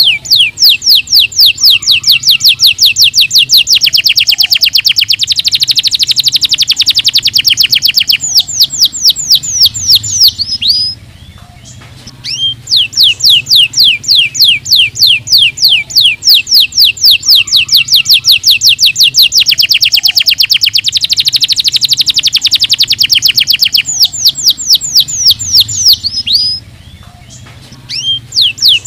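Domestic canary singing: fast trills of repeated high notes, each run at a steady rate, with a quicker rolling passage in the middle and two brief pauses. The same phrase sequence comes round twice.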